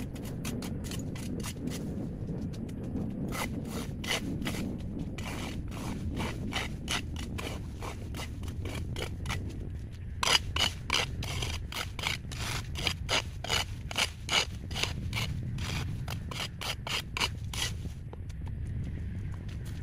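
Quick repeated scraping strokes of a hand tool, a few a second, harder and more regular in the second half, over a steady low rumble.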